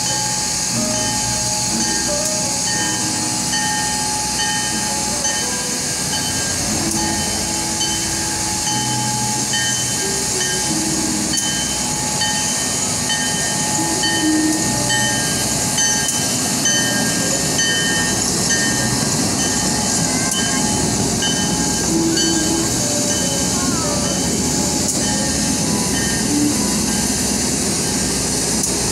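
Diesel locomotive arriving slowly, its engine running steadily as it hauls a train of stainless-steel passenger cars past, with the steady rumble of wheels on rails.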